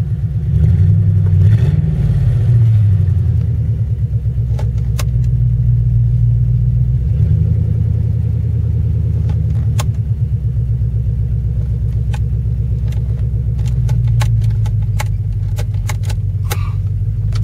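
Ford Crown Victoria's 4.6-litre V8 running with no exhaust after the catalytic converters: a loud, steady low rumble with scattered sharp ticks, revved up a little a second or so in. It is running with a gear selected, but the car does not move because the transmission is too low on ATF to engage; the driver suspects a bad torque converter.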